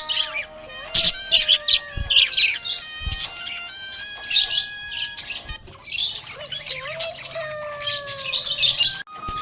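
Budgerigars chirping and chattering in quick, high bursts, over background music with held notes and a soft low beat.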